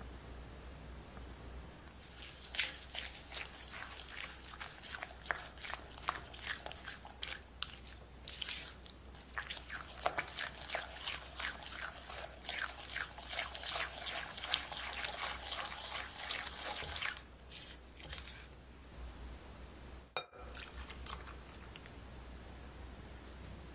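Silicone spatula stirring granulated sugar into a soft creamy mixture in a glass bowl: gritty, squelching scrapes, stroke after stroke, starting about two seconds in and stopping about seven seconds before the end. A low hum runs underneath.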